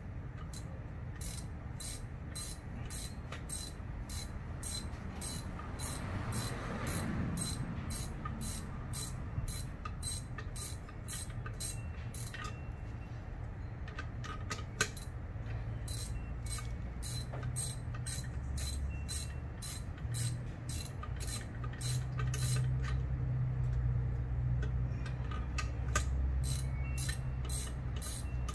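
Hand ratchet wrench clicking in a steady run of quick strokes, about three clicks a second with a few short pauses, while fasteners on a VG33 engine part are turned.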